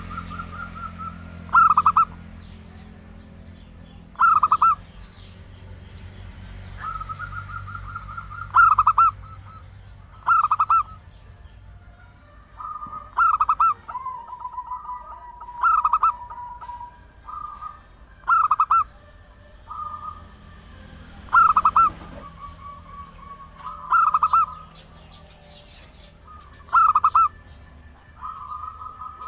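Zebra dove (perkutut) call, given as a female calling a male, as used for luring males: loud short bursts of rapid cooing notes every two to three seconds, with softer, longer trills between them.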